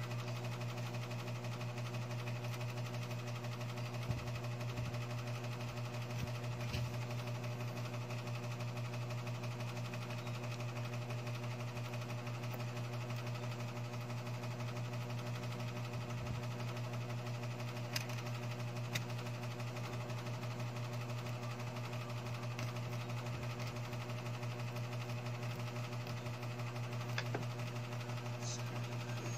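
A steady low electric motor hum, with a few faint clicks as small phone parts are handled.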